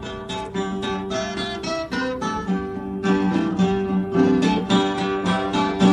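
Acoustic guitar playing an instrumental interlude, strummed with quick, repeated strokes over sustained chords.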